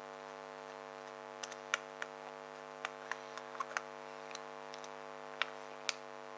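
Faint, irregular small clicks of a screwdriver working the main jet back into the carburettor, over a steady electrical hum.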